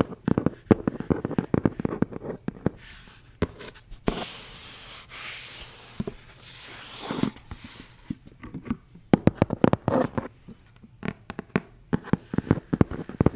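Close-up ASMR handling of make-up products and their packaging: quick runs of crisp taps and clicks, with a steady rubbing, rustling hiss in the middle.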